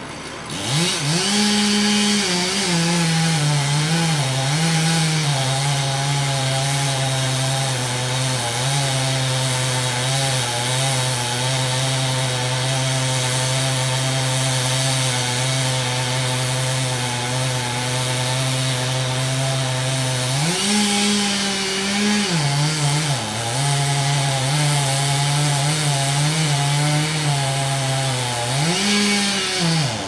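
Gasoline chainsaw cutting into a tree trunk: the engine holds a steady, lower pitch under load through a long cut. It revs higher and free about two-thirds through, drops back into the cut, and revs up again near the end.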